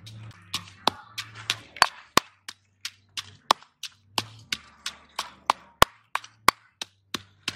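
Pestle pounding red chilies and garlic in a stone mortar: quick sharp knocks, about three or four a second, some much louder than others.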